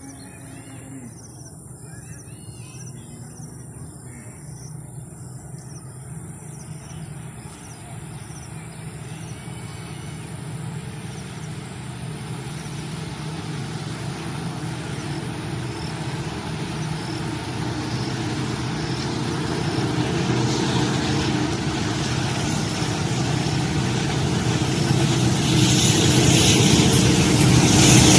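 A GE U20C diesel-electric locomotive (Pakistan Railways ZCU-20 class) approaches hauling a passenger train, its engine running and growing steadily louder throughout. Wheel and rail noise builds near the end as it draws close. Birds chirp at first, before the train drowns them out.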